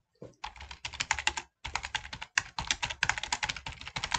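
Fast typing on a computer keyboard: a quick run of key clicks with a brief pause about a second and a half in.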